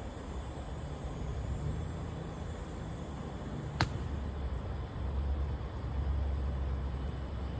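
Outdoor ambient noise: a steady hiss over a low rumble that swells and eases, with one sharp click just under four seconds in.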